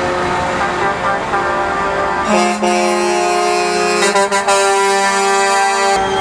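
Truck air horns blowing long, overlapping held blasts; a new, louder horn starts about two seconds in and cuts off sharply near the end.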